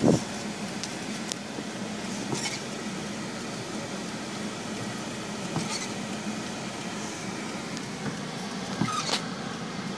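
Steady hum of a running Toyota heard from inside its cabin, with a sharp knock at the very start and a few lighter clicks and taps as small hands work the steering wheel and the stalk lever.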